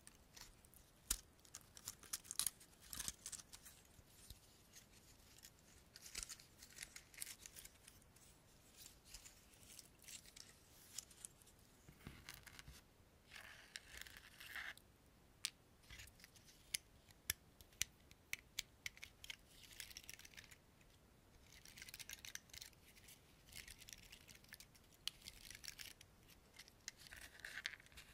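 Pinecones handled and scratched up close: dry scales crackling, with many scattered sharp clicks and short scratchy rustles.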